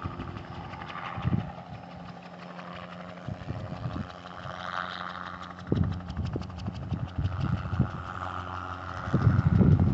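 A low-flying helicopter fitted with spray booms, heard as a steady engine-and-rotor hum whose higher drone swells and fades as it moves. A loud low rumble comes in near the end.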